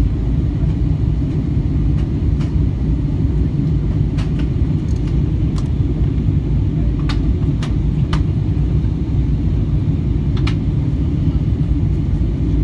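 Steady low drone of an airplane heard from inside the cabin, engines and airflow, with a few brief clicks over it.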